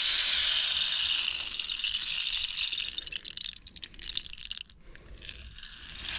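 Bamboo rain stick tipped up, its fill pouring through inside as a steady high hiss for about three seconds, then thinning into separate clicks as the last pieces trickle down and die away.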